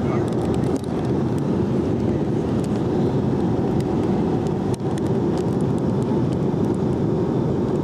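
Steady roar of engine and airflow noise heard inside an airliner's cabin in flight.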